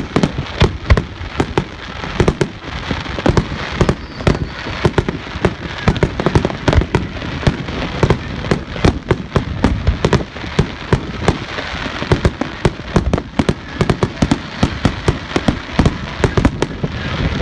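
Fireworks display going off at close range: a continuous barrage of sharp bangs, several a second, over steady crackling.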